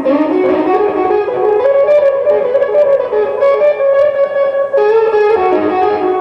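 Electric guitar played solo in a slow, improvised blues: a single-note melody of held notes, some bent up in pitch.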